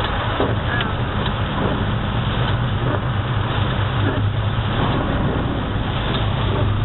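Car being driven on a wet, flooded street: a steady low engine hum under the constant hiss of tyres on water.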